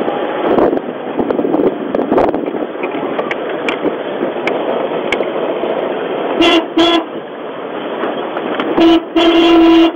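Off-road vehicle driving over a rough dirt track, with steady engine and road noise in the cab. A vehicle horn sounds two short toots about six and a half seconds in, then a short toot and a longer, louder one near the end.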